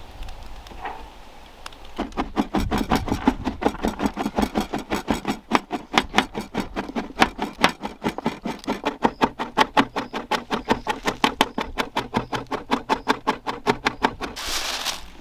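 A kitchen utensil worked by hand in a rapid, even rhythm of strikes, about five a second, starting about two seconds in; a short rushing noise follows near the end.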